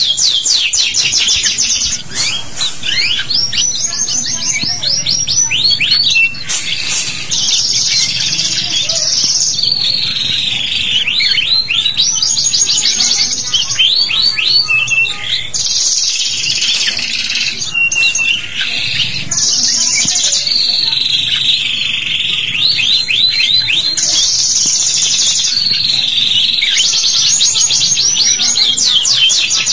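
Domestic canary singing a long, unbroken song of fast trilled runs of repeated chirps, broken up by swooping high notes.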